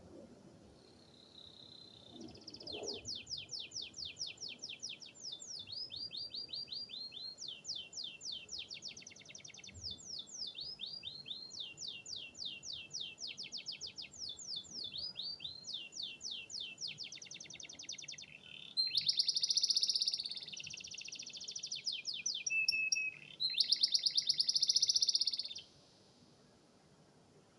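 Domestic canary singing a long, unbroken song of fast rolling trills, switching from one trill to the next every second or two. The loudest, densest rolls come in the last third, then the song stops abruptly.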